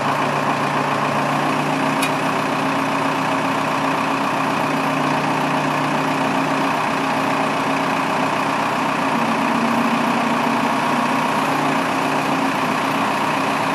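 2002 Case 580M backhoe's four-cylinder diesel engine idling steadily.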